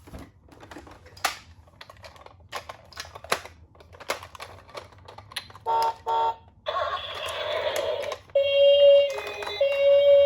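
Small plastic clicks and taps from a toy ambulance minicar, then two short electronic beeps about six seconds in and a brief rushing sound. From about eight seconds the toy's electronic two-tone siren starts, alternating between two pitches.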